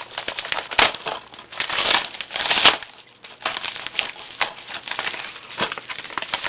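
A parcel's packaging being handled and opened by hand: irregular crinkling and rustling, with scattered sharp crackles and two louder rustles, about a second in and again around two and a half seconds in.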